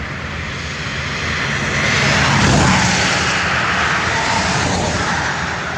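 An aircraft passing overhead: a steady engine drone that swells to its loudest about two and a half seconds in, then slowly fades.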